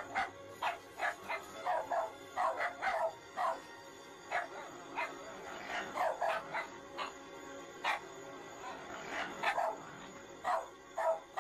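A dog barking over and over in short, sharp barks, often two in quick succession, with short pauses between runs, over background music.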